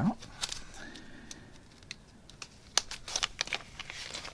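Clear plastic packaging bag crinkling and rustling as it is handled and opened, in scattered short crackles and light clicks, busier near the end.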